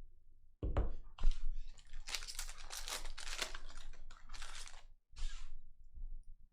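Two knocks, then a few seconds of tearing and crinkling: a foil trading-card pack being ripped open.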